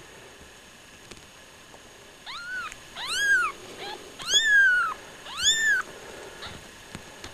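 Newborn kitten, about eight hours old, mewing as it is picked up by hand. There are about four high, thin cries, each rising and then falling in pitch, starting about two seconds in.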